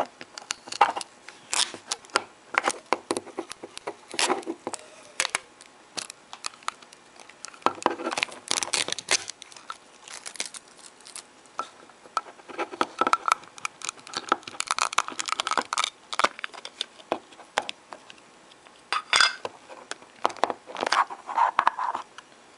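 Thin plastic wrapping being peeled off and crinkled on a small hard clear plastic case, with irregular clicks and taps as the case is handled, coming in uneven bursts.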